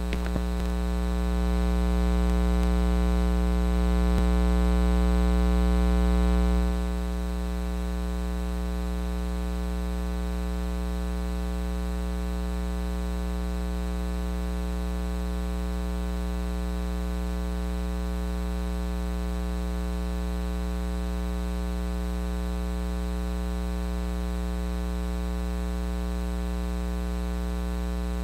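Steady electrical mains hum with a dense stack of overtones, a little louder for the first seven seconds or so, then holding constant.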